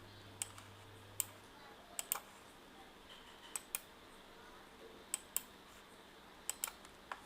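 Sharp clicks from computer controls, mouse buttons and keys, about eleven in all and several in quick pairs, over faint steady hiss.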